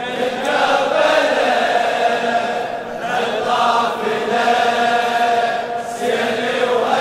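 Many men's voices chanting a Shia latmiya (Muharram mourning chant) together, in long held phrases of a few seconds each.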